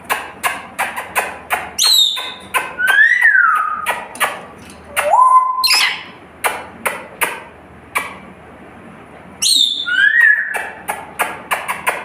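Rainbow lorikeet whistling in short gliding notes (a high falling whistle, a rising-and-falling one, and one that rises and then holds), the phrase given twice. Under it runs a fast patter of light taps, about five a second.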